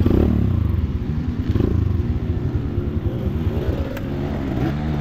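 Off-road dirt bike engine revving hard, loud from the start, its pitch rising and falling as the throttle is worked.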